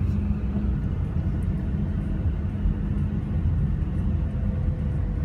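Steady low vehicle rumble, with a faint steady hum becoming clearer about four seconds in.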